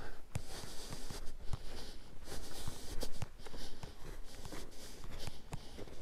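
Footsteps crunching through very cold, dry snow, about one crunch a second with small clicks between.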